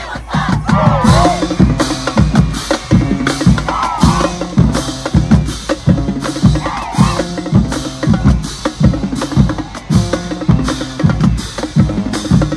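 Marching band drumline playing a fast, steady cadence of snare and bass drums, with repeated low pitched notes under the beat.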